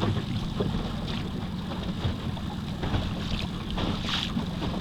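Wind buffeting the microphone as a steady low rumble, with water lapping and splashing against the boat hull.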